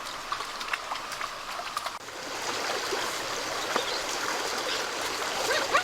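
Steady rushing of flowing water, like a small stream, with scattered small clicks and splashes. About two seconds in, the sound changes abruptly to a slightly louder, even flow.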